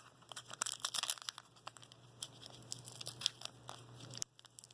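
Crinkling and crackling of a baseball card pack's wrapper being handled: a string of small, irregular crackles over a faint steady low hum.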